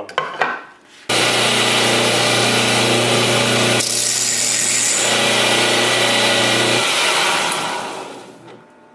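A 1x30 belt sander switches on about a second in and runs steadily while a screw that is too big is ground down on the belt. Its tone changes for about a second midway. It is switched off near the end and spins down.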